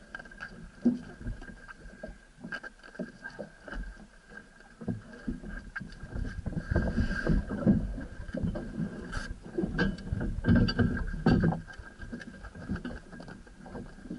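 Boat under way: irregular low thumps and rumbling as the hull bounces over the water, loudest in the middle stretch, over a steady high whine.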